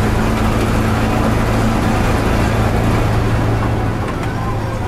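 Casey Jr. Circus Train running along its track: a steady low hum under a constant rumble. It is a little louder while the train is in the tunnel and eases as the train comes out into the open near the end.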